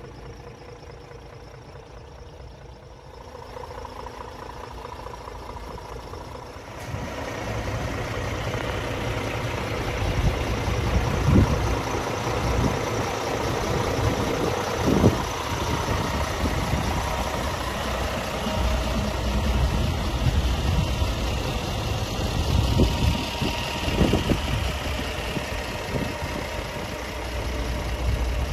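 Scania S450 tractor unit's 13-litre six-cylinder diesel engine idling steadily, growing louder about seven seconds in, with a few brief low thumps.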